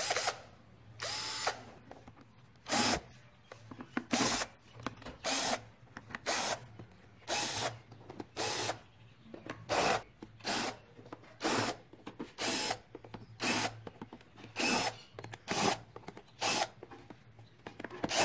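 Cordless drill-driver run in short bursts, about one a second, backing out the screws that hold a hoverboard's plastic shell together.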